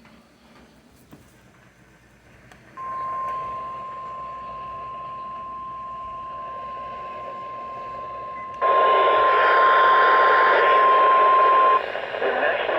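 A single steady alert tone comes in over radio static about three seconds in, jumps louder a few seconds later, and cuts off near the end: the NOAA Weather Radio warning alarm tone that announces an emergency alert.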